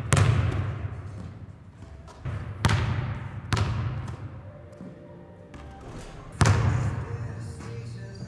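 Basketball bouncing hard on a hardwood gym floor: four separate bounces a second or more apart, each ringing on in the gym's echo. Music plays faintly underneath.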